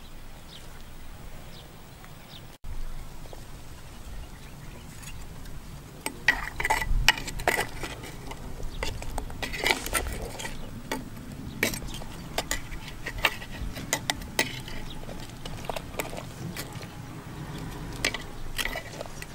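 Metal ladle clinking and scraping against a clay cooking pot while stirring and scooping stew, in a run of irregular sharp knocks starting about six seconds in.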